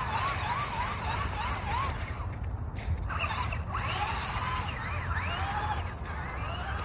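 Small electric RC truck's motor whining as it spins on snow. The pitch wobbles up and down about four times a second at first, then rises and falls in uneven sweeps as the throttle changes, over a steady low rumble.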